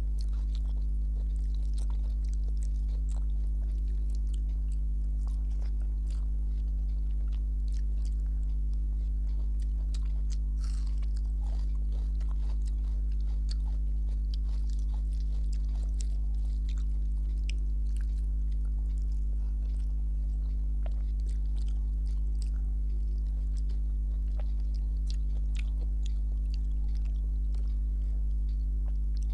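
Faint, close-up eating sounds by hand: small wet clicks of fingers mixing rice with kadhi, and chewing. Under them runs a steady low electrical hum, the loudest thing throughout.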